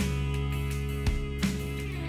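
Background music led by guitar, its chords changing about once a second over a steady low bass.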